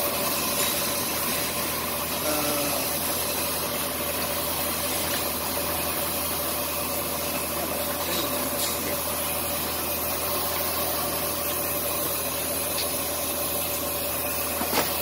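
Machine-shop machinery running steadily: a constant low drone with a steady whine over it.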